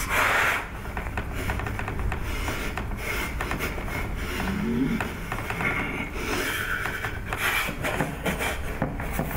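A man imitating a motorbike engine with his mouth: a continuous, rapidly pulsing buzz blown through pursed lips.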